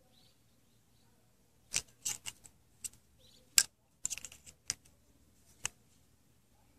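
Handling noise from a scooter carburetor and flashlight: a scatter of short, sharp clicks and light metallic clinks, about a dozen over four seconds, the sharpest about three and a half seconds in.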